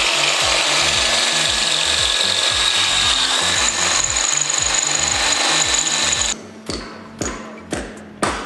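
Cordless drill running at speed, driving a fastener into the cage frame, cutting off suddenly about six seconds in. Background music with a steady beat plays underneath.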